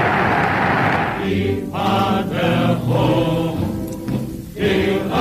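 Old archival 1930s German broadcast recording: a large crowd cheers, then about a second in breaks into massed voices chanting in unison, with held notes and short breaks.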